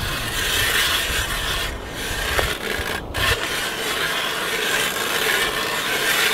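Hand-cranked ice auger's steel blades shaving through lake ice: a steady rasping scrape, broken twice briefly about two and three seconds in.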